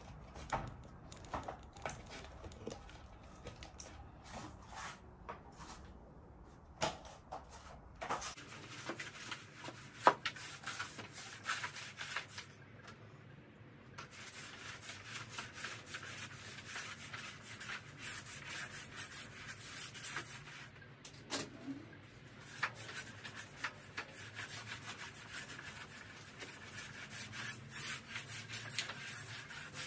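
Flat floor mop with a wet cleaning pad pushed back and forth over deck boards: repeated rubbing, scraping strokes with small knocks. Before that, for about the first eight seconds, light clicks and rustles as the wet pad is fitted onto the mop head.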